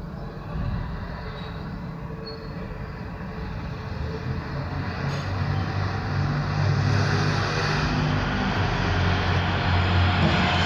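Outdoor traffic ambience: a vehicle's low engine rumble and road noise build steadily louder as it approaches, over a constant background hum.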